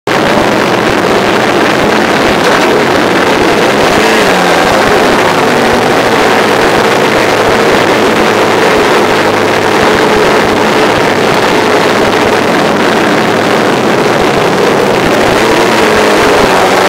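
Motorcycle engines running at low revs close to the onboard microphone of a 2003 Suzuki GSX-R 750 with its inline-four, among other sportbikes moving off slowly; a steady, loud engine sound with slight rises and falls in pitch.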